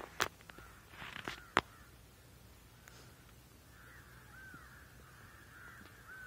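Repeated short bird calls, each a quick rise-and-fall note, coming thickly in the second half, with a few sharp clicks in the first two seconds.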